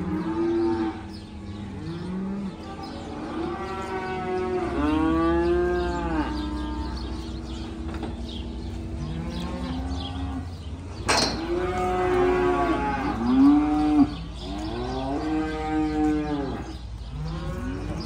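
Beef feeder calves mooing over and over, several calls overlapping one another, with a steady low hum underneath.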